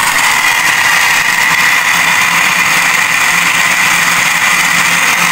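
Electric countertop blender running steadily, churning mango juice with ice in the jug. A steady high whine sits over the motor's noise.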